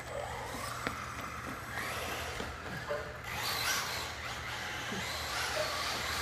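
Brushless electric motor of a Traxxas Rustler VXL RC truck whining, its pitch rising and falling as the truck speeds up and slows, with tyre noise on a hard tile floor.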